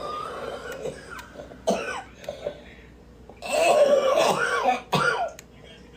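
A woman coughing repeatedly: a few short, sharp coughs, then a longer, louder coughing fit from about three and a half seconds in.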